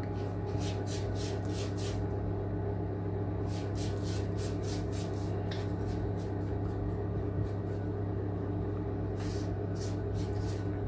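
Steady low electrical hum from a running kitchen appliance. Over it come light, rhythmic swishes of a silicone pastry brush spreading oil over rolled-out samosa dough, in short runs, the last near the end.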